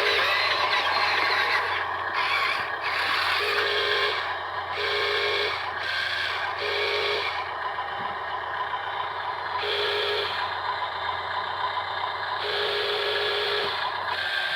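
Small electric motors and gearboxes of radio-controlled construction models running, with a steady mechanical clatter. A whine starts and stops in short bursts of about a second, six or seven times.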